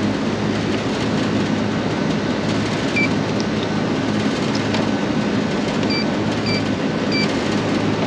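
Short electronic beeps from a Fieldpiece digital manifold gauge as its buttons are pressed to set the refrigerant: one about three seconds in, then three more near the end. Under them runs a steady mechanical drone with a low hum from rooftop air-conditioning equipment.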